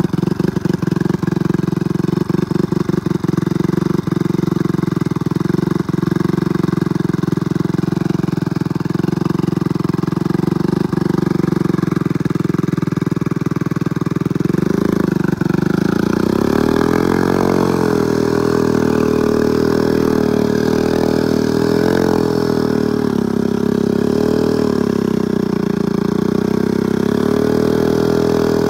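Small single-cylinder four-stroke engine of a Honda step-through motorcycle running under load as it is ridden through deep mud. It holds a fairly steady note at first, then from about halfway the engine speed rises and falls over and over as the rider works the throttle.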